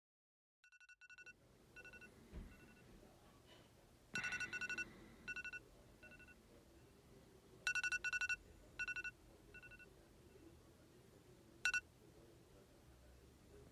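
A phone going off, faint, in short repeated pulses in groups of two to four with pauses between them, and a last short pulse near the end.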